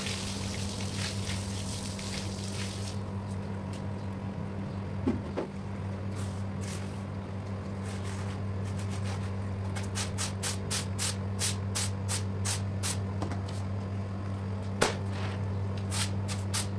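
Water gushing from a hose onto a soaked rug, followed by a stiff-bristled push brush scrubbing the wet rug in quick, even strokes, about two a second, strongest in the second half. A steady low machine hum runs underneath.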